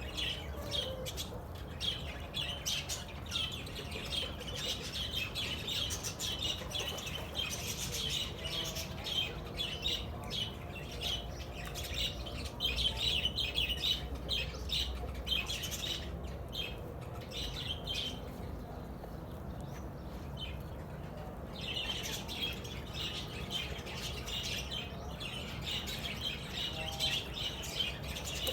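A flock of free-range chicks peeping continuously in dense, high-pitched chirps, easing off for several seconds midway before picking up again.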